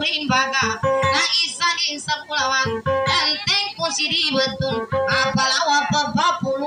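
A woman singing in a high, wavering voice over rapidly plucked guitar notes, in the dayunday style.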